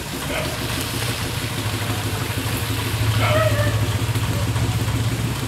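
A small engine running steadily with a low, pulsing hum that grows a little louder about three seconds in, over the even hiss of rain.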